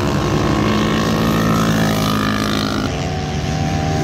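Racing motorcycle engines at high revs as the bikes come down the circuit toward the track edge. The pitch steps down sharply about three seconds in, as at an upshift.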